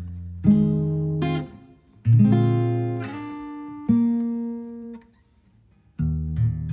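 Background music: acoustic guitar chords struck about every two seconds, each left to ring and fade away.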